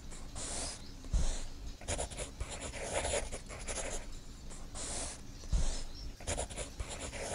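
A pencil scratching on paper in irregular drawing strokes, about one a second, with a couple of dull knocks.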